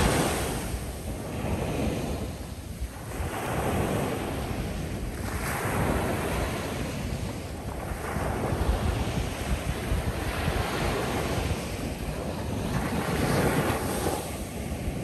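Ocean surf breaking and washing up the beach shoreline, swelling and easing in surges every few seconds, with wind rumbling on the microphone.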